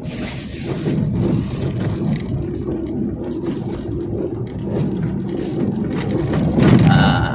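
A vehicle driving along the road: steady engine and road noise, swelling louder about a second before the end.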